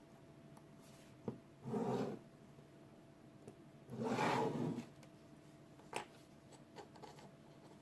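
Small handling noises from assembling a circuit board: two brief rubbing scrapes, the second longer, and a few light clicks.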